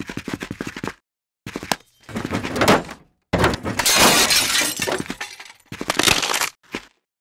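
Cartoon sound effects for a Lego stop-motion animation, in short separate pieces with dead silence between them: a rapid run of clicks in the first second, short effects after it, and a longer harsh noise from about three to six seconds in, the loudest part.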